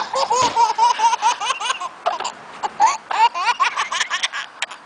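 Baby laughing in repeated short, high-pitched bursts, with a brief lull about halfway through.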